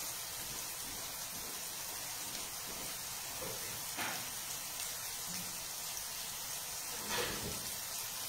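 Steady sizzle of sliced courgettes frying in a pan on a gas hob, with two brief louder spits about four and seven seconds in.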